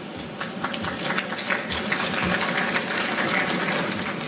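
Audience applauding: a dense patter of claps that swells about half a second in and cuts off abruptly.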